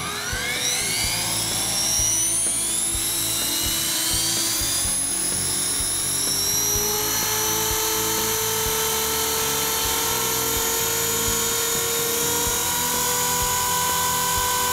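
Align T-Rex 450 electric RC helicopter spooling up on the ground: the whine of its brushless motor and drive gears rises steeply in pitch over the first few seconds, then holds a steady high whine as the rotor settles at speed.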